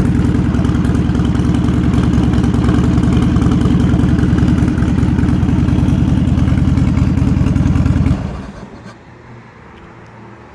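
Buell XB12 air-cooled 1203 cc V-twin, fitted with a straight-pipe exhaust, idling steadily with an even pulsing beat. It is switched off about eight seconds in and dies away within a second.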